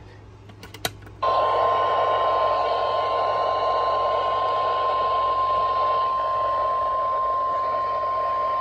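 NOAA Weather Radio's 1050 Hz warning alarm tone: one steady, loud, high tone over radio static. It starts about a second in, after a few short clicks, and is the alert signal that a severe thunderstorm warning broadcast is about to follow.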